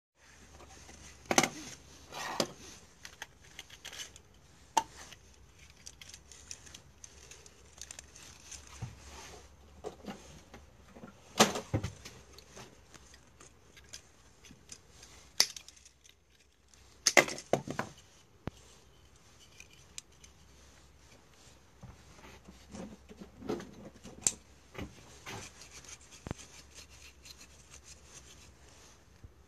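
Plastic detector housing and pliers handled while the unit is taken apart: scattered sharp clicks and knocks with rubbing and rustling between, the loudest knocks about a second and a half, eleven and seventeen seconds in.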